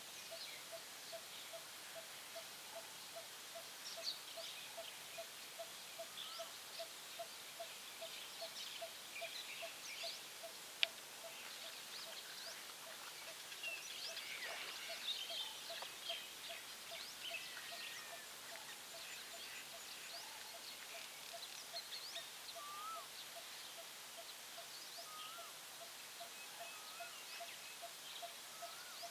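Several birds chirping and whistling, over a single low note repeated steadily about twice a second. There is one sharp click about eleven seconds in.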